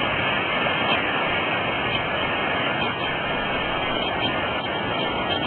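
Creek water rushing over rocks: a steady, even wash of noise.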